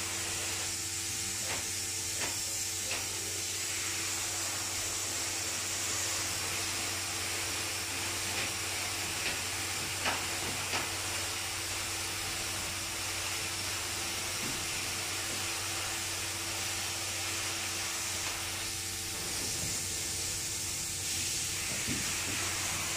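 Spray foam gun spraying insulation foam onto a ceiling between the rafters: a steady hiss with a low, even hum underneath. A few light clicks come through near the start and about ten seconds in.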